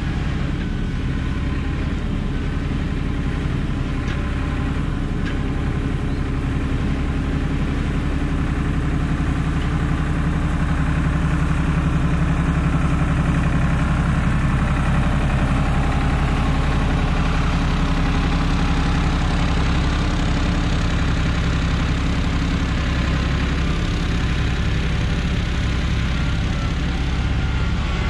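Kubota M6060 tractor's diesel engine running steadily under load as it drags a box blade along a dirt driveway, coming up close near the end.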